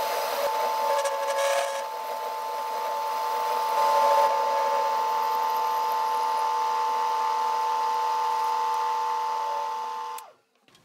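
TV16 lathe running with a steady whine while its cutting tool parts off a small turned screw held by hand. The sound stops abruptly near the end.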